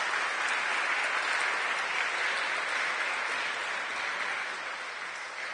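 Congregation applauding, a steady clapping that eases off toward the end.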